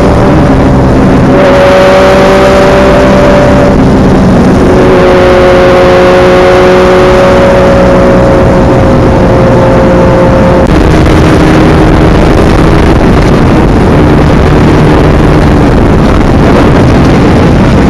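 Sport motorcycle engines running at steady road speed, their engine note holding and then shifting in pitch a few times, under heavy wind noise on the microphone.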